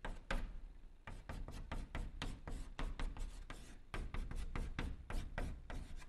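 Chalk writing on a blackboard: a quick, irregular run of short taps and scratches as characters are written stroke by stroke.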